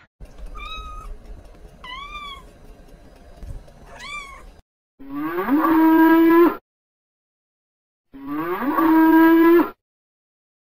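Faint short high mews, three of them, like a kitten's. Then a cow moos twice, loudly; each long moo rises at the start and then holds steady.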